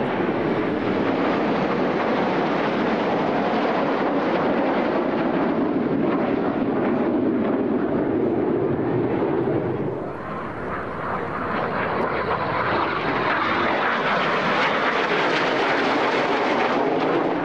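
Jet noise from Red Arrows BAE Hawk T1 aircraft flying past, a loud, continuous rushing sound. About ten seconds in it dips, then comes back higher-pitched before stopping abruptly near the end.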